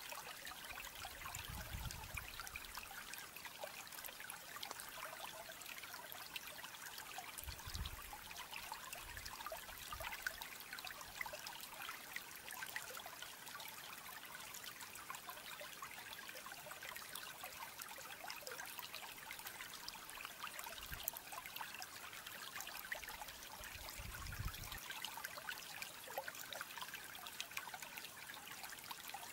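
A faint, steady hiss like trickling water, with a few brief low rumbles.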